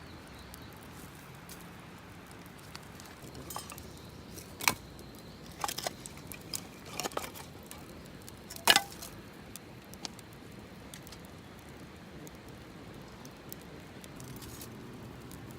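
A handful of light, sharp clinks and taps from camp cooking gear being handled, the loudest about nine seconds in, over a quiet steady background hiss.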